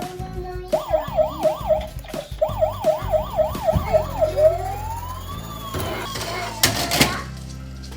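Police car siren sounding a fast yelp, about three rises and falls a second, then switching to a slow wail about halfway through. A few sharp clacks near the end.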